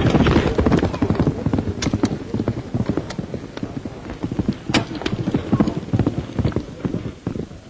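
Horses' hooves galloping on turf, a fast, dense patter of hoofbeats that grows fainter toward the end, with a couple of sharper clicks.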